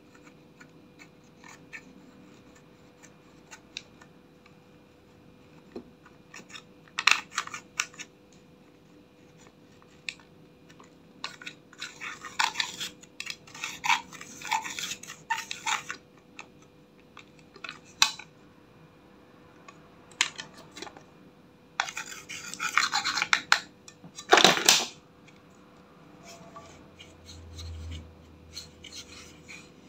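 Metal-tipped tool scraping and chipping pressed blush powder out of a plastic makeup palette, in several scratchy bursts with small clicks and taps between them.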